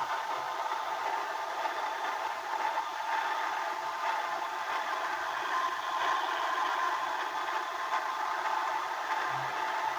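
Washing machine on its spin cycle, heard through a keypad phone's microphone from inside the drum: a steady whir with clattering and rattling as the phone tumbles with the drum.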